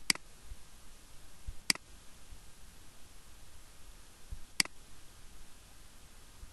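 Three computer mouse-button clicks, the second about one and a half seconds after the first and the third about three seconds later, over a faint steady hiss.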